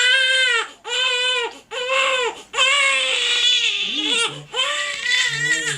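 Nearly four-week-old baby with reflux crying hard: about six short arched wails in a row, each broken off by a quick breath, a longer one around the middle. It is the really uncomfortable cry the parent describes.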